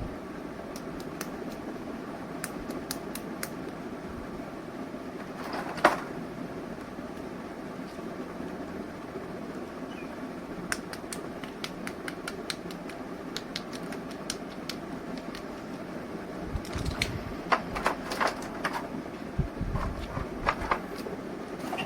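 Small plastic clicks, taps and knocks from mini toy figures and their packaging being handled, scattered over a steady background hiss, with one louder knock about six seconds in and a busier run of clicks and thumps near the end.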